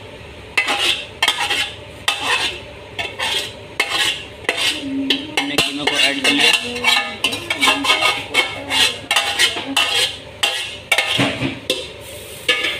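Metal spoon scraping and clinking against the inside of a metal pot as boiled minced chicken is scraped out of it into a frying pan; a quick, irregular run of scrapes and knocks.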